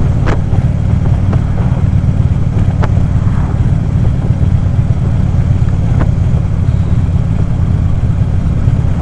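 Harley-Davidson V-twin touring motorcycle running steadily at cruising speed, a low engine rumble under wind rush on a helmet microphone, with three brief clicks.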